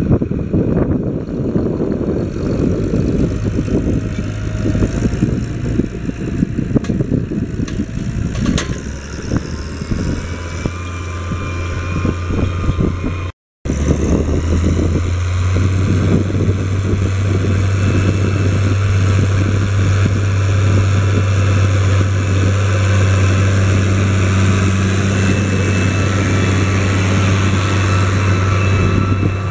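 Case IH 1056 XL tractor's six-cylinder diesel engine running steadily under load while pulling a four-furrow plough and packer through the soil. The sound cuts out briefly about halfway, then the engine hum comes back louder and steadier.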